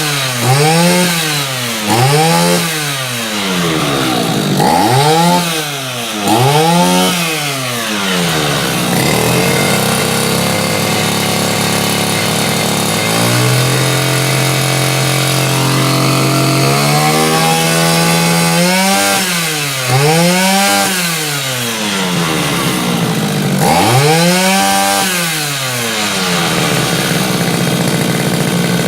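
Two-stroke brush cutter engine being revved in repeated quick throttle blips, each one rising and falling back to idle, with a stretch in the middle where it holds steady, first at idle, then a little faster. The carburetor has just been tuned, and the engine picks up revs responsively and runs smoothly.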